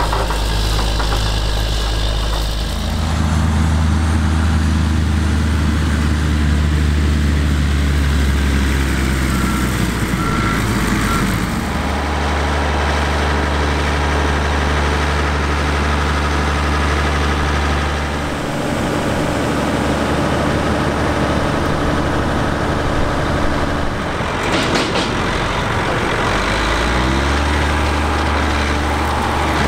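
John Deere 9520 four-wheel-drive tractor's diesel engine running steadily, its note shifting a few times as it works. A brief rush of noise cuts in near the end.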